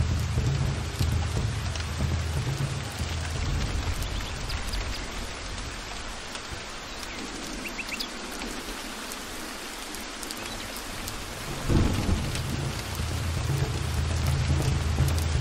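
Heavy, steady rain with rolling thunder. The deep rumble fades in the middle, then a sharp crack of thunder comes about twelve seconds in and the rumble builds again.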